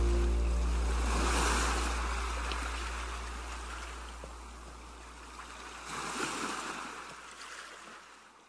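Ocean surf: two waves wash in and recede, one about a second in and another around six seconds, over the dying low note of the soundtrack music. The whole fades out near the end.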